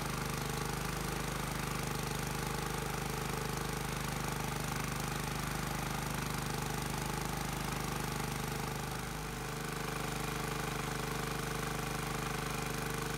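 Single-cylinder 212cc Predator engine running steadily, held by its governor at about 3000 RPM under a roughly 3-horsepower alternator load, with an ARC billet flywheel fitted. The level dips briefly about nine seconds in.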